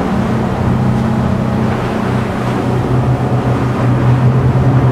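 A 32-foot Intrepid's engines hold a steady hum at planing speed while wind and water rush past the hull as it runs with the swells.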